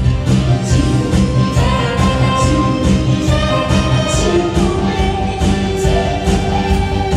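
Woman singing a Korean trot song into a microphone over a loud backing track with a steady beat.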